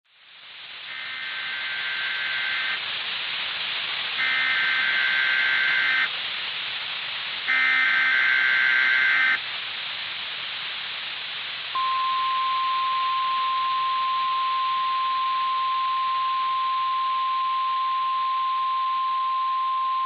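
Emergency Alert System broadcast as on NOAA Weather Radio: a steady radio hiss fades in, then three short bursts of warbling SAME header data tones, each under two seconds. A little past halfway the long single-pitch warning alarm tone begins and holds steady. Together they announce a tornado warning.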